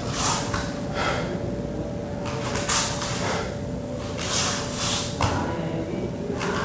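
Short swishing noises, about seven at uneven intervals, from a barefoot performer's feet brushing and sliding on foam floor mats, over a steady faint hum.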